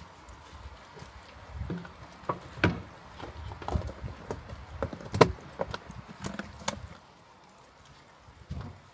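Irregular knocks and clicks of hard objects being handled, one sharper knock about five seconds in, the clatter stopping about seven seconds in.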